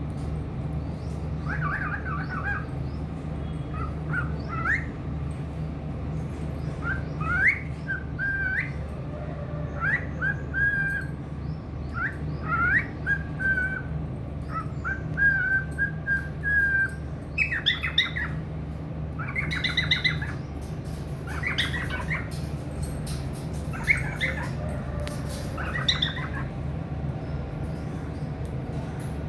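Cockatiel chirping: short, rising whistled notes in repeated bursts, turning into sharper, louder calls in the second half, over a steady low hum.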